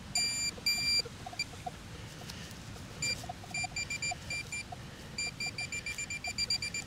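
Metal detector beeping over a buried target: two longer electronic tones, then short beeps that come faster and faster as it homes in on the spot.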